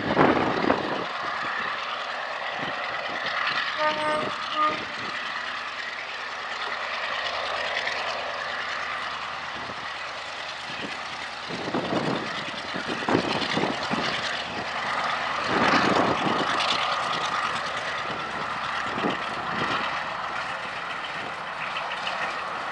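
BR Class 35 'Hymek' diesel-hydraulic locomotive's Maybach V16 engine working hard as it approaches hauling a passenger train, a steady loud engine note.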